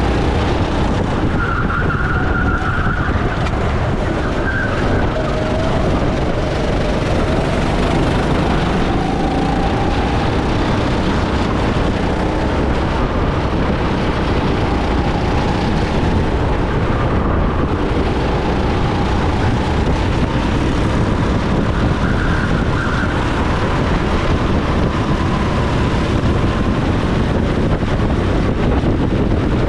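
Racing go-kart engine heard onboard at speed, its pitch rising and falling with the throttle through the corners, under a steady dense rushing noise.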